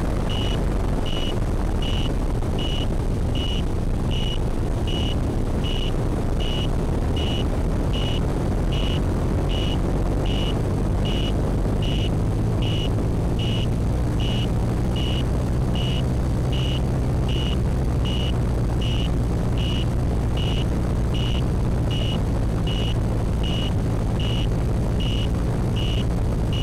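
Quadcopter in flight, heard on its onboard camera: steady wind rush and motor-and-propeller noise, with a high electronic beeper sounding evenly about once every three-quarters of a second. The motor hum turns steadier and more tonal about halfway through.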